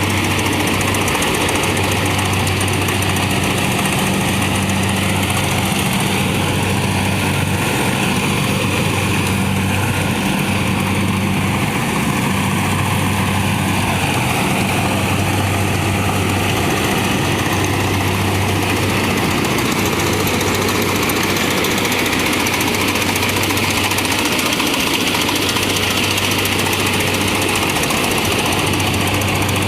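Kubota combine harvester's diesel engine and machinery running steadily while harvesting rice, a constant low hum over a dense mechanical rattle.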